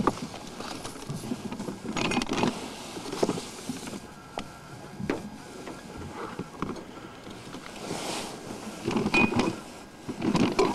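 Irregular rubbing, bumps and clicks of a handheld camcorder being moved about and brushed against fabric, thickest near the end.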